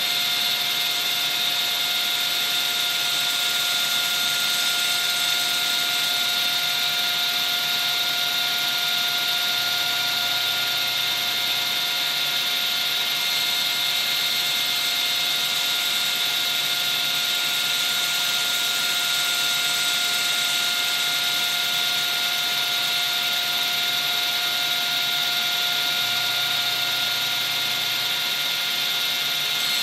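Table saw running steadily, its spinning blade cutting into a wooden workpiece held in a drill chuck just above it: an even whine over a rushing noise.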